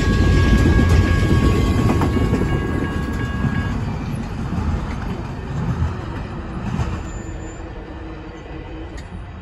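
Tail end of a BNSF double-stack intermodal freight train rolling past and away: a low rumble of container cars on the rails that fades steadily as the train recedes. A thin, steady high ringing tone runs with it and stops about four seconds in.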